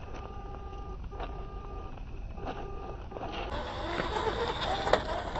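Electric motor of an RC car whining in short stretches as it drives. From about three and a half seconds in, a louder, rougher stretch follows with clattering and a few sharp knocks.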